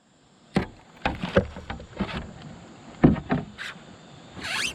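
Irregular knocks and clunks of gear being handled in a fishing kayak, about half a dozen scattered hits, with a short rising rush of noise near the end.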